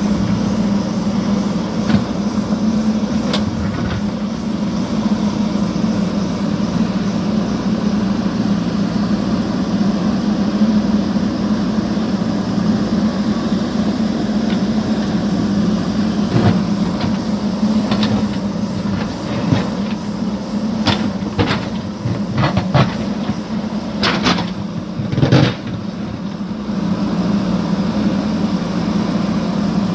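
JCB backhoe loader's diesel engine running steadily as it digs, with a series of sharp knocks and clanks in the second half.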